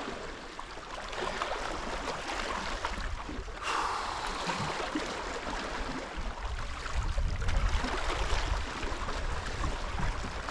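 Steady wash of the sea at the shoreline with wind noise, the low rumble swelling for a couple of seconds past the middle.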